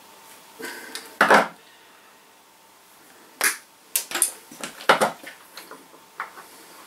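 Pliers and other hand tools clicking and clattering on a worktop as a flex is stripped. There are sharp knocks, loudest about a second in, then a run of quicker clicks around four to five seconds in.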